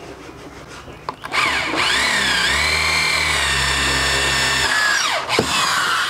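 Electric hand drill with a twist bit boring into the plywood lid of a speaker box. The motor whines up to speed about a second in, dips briefly in pitch, runs steady, then winds down with a falling whine near the end.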